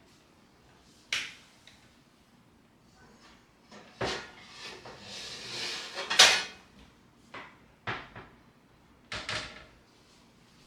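Kitchen work sounds: a scattering of sharp knocks and clacks, with a rustling, scraping stretch a little past the middle that ends in the loudest knock.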